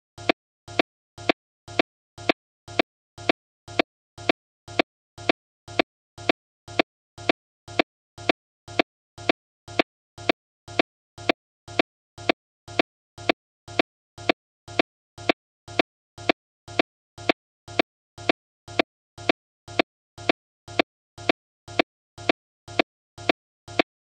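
A short, sharp pitched tick repeating at an even, unchanging rate of about two and a half times a second, with silence between ticks.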